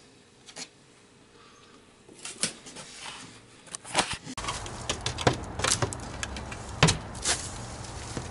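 Short taps and knocks from hands handling a plywood window panel and a PVC pipe chute. They are sparse at first; after about four seconds, several sharper knocks come over a low rumble.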